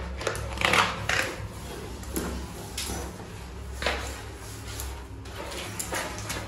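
Scrub pad rubbing on wet, soapy ceramic wall tiles: a few short rough scrubbing strokes, over a steady low hum.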